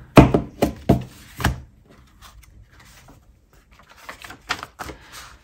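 Paper pages and card being handled and laid down on a tabletop: a run of sharp taps and knocks in the first second and a half, then a few lighter taps near the end.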